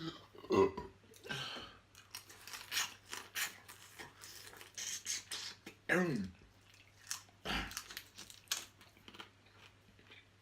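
Close-miked eating sounds: a person chewing seafood-boil food, with many short wet mouth clicks and smacks. There are short voiced sounds that fall in pitch, one just after the start and one about six seconds in.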